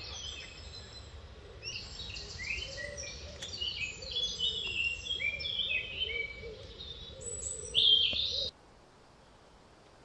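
Woodland songbirds singing: many short chirps and whistled phrases overlapping. It cuts off abruptly about eight and a half seconds in, leaving only a faint hiss.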